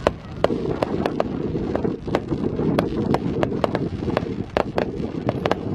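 Fireworks going off: a rapid, irregular run of sharp cracks and bangs, about three to four a second, over a steady low rumble.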